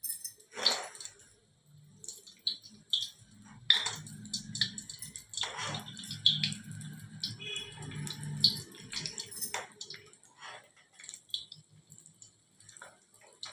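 Kachoris deep-frying in very hot oil in a wok: the oil sizzles and crackles around them, with scattered sharp clicks as more are slid in. A low hum runs through the middle seconds.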